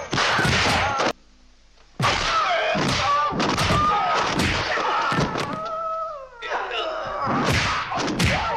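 Bruce Lee's high-pitched fighting yells, wailing cries that glide in pitch, mixed with the thuds of punch and kick sound effects. A short near-silence about a second in breaks the run of cries.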